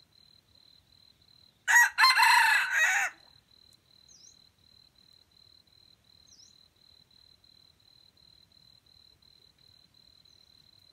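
A junglefowl rooster crows once, a short crow of about a second and a half, about two seconds in. Under it runs a cricket's steady pulsing chirp, with two faint bird chirps later on.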